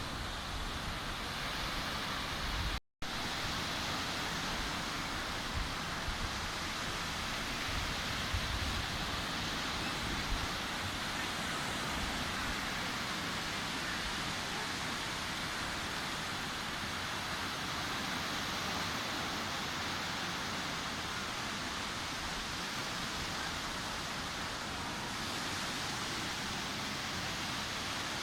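Sea surf washing steadily onto a beach, an even wash of breaking waves. The sound cuts out completely for an instant about three seconds in, then carries on as before.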